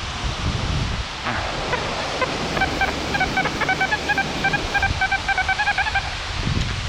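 Strong wind rushing over the microphone and through the trees. In the middle, a rapid run of short, evenly spaced beeps lasts about four seconds.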